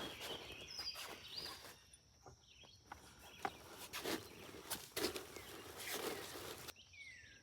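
Irregular footsteps and rustling among plants, with birds chirping now and then; two short falling chirps near the end.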